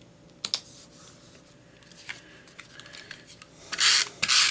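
Paper and cardstock handled by hand on a cutting mat: a couple of light taps about half a second in, then two loud rustling swishes of paper sliding near the end.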